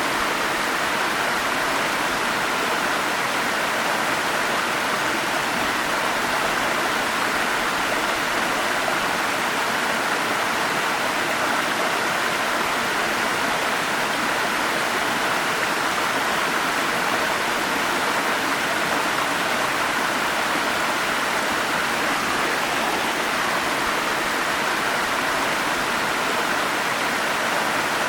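Forest stream flowing steadily, a constant even rush of water with no breaks or changes.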